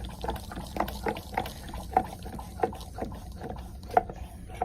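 Espresso dripping from a Moocoo portable espresso machine into a cup: irregular separate drips plinking into the liquid, a few each second.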